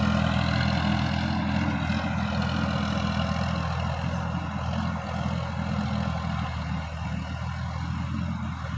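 Sonalika DI-50 RX tractor's diesel engine running steadily while it pulls a rotary tiller through dry soil. The sound slowly fades as the tractor moves away.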